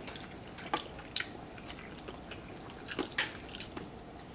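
Close-up chewing and wet mouth sounds of someone eating chicken curry with rice, with a few short clicks scattered through.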